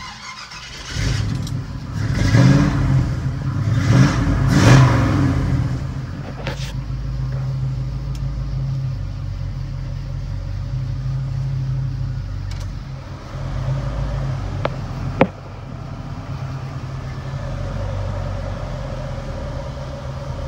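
Chevrolet C10 pickup's 350 small-block V8 with tuned-port fuel injection starting about a second in, revved twice, then settling into a steady idle, heard from inside the cab. A single sharp click comes near the end.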